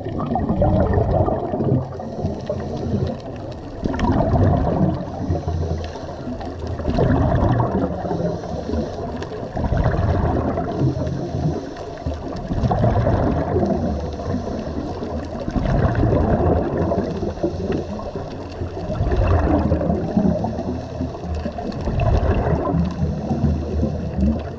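Scuba divers breathing through their regulators underwater: a gurgling rush of exhaled bubbles that surges about every three seconds, muffled through the camera's underwater housing.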